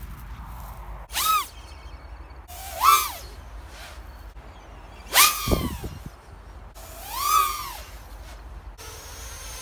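Emax BabyHawk R Pro 4-inch FPV racing quadcopter flying, its four 1606-size 3300 kV brushless motors and propellers whining in four separate bursts, each rising and then falling in pitch, as it punches the throttle and sweeps past.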